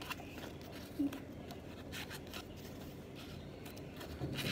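Foam toy glider parts rubbing and scraping softly as a wing piece is worked into the slot in the foam fuselage by hand, with faint rustles and one brief louder sound about a second in.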